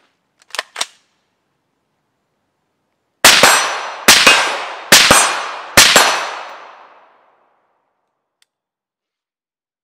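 Four suppressed rifle shots, a little under a second apart, from a rifle fitted with the Liberty Suppressors Agent 5.56 silencer, each followed by an echo that dies away. Two short clicks from handling the rifle come before the shots.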